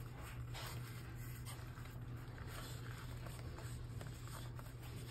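Soft, faint rustling of a flour tortilla being folded and rolled into a wrap by hand on a wooden cutting board, over a steady low hum.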